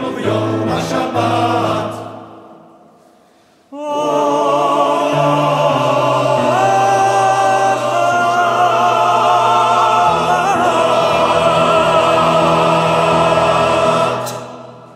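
Men's choir singing: a phrase dies away about two seconds in, and after a brief pause the choir holds a long closing chord from about four seconds in, which fades out near the end.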